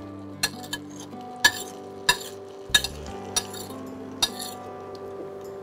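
Metal spoon clinking against a plate as shredded chicken is knocked off into a pan, about eight sharp clinks spread over a few seconds.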